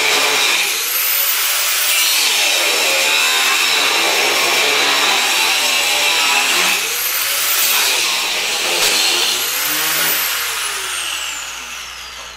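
Angle grinder grinding on a steel snow plow blade. Its whine dips and recovers three times as it is pressed into the metal, then the grinder spins down near the end.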